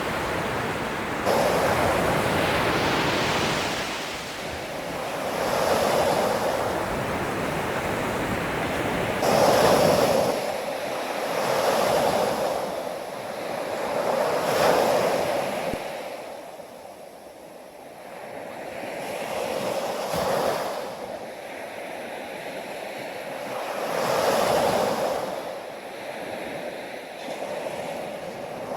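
Ocean waves breaking and washing ashore, the surf swelling and fading every few seconds, with a quieter lull about two-thirds of the way through.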